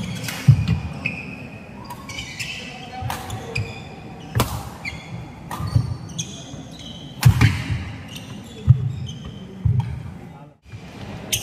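Badminton rally: rackets smacking the shuttlecock several times, with shoes squeaking and feet thudding on the wooden court.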